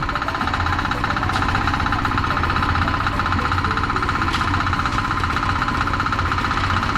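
A small engine on concrete-pouring equipment, running steadily with a fast, even pulse.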